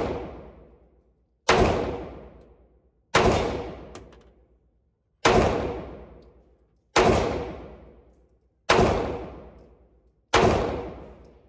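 FN FNS-9C 9mm pistol firing six single shots, one about every 1.5 to 2 seconds. Each shot rings out for about a second in the indoor range.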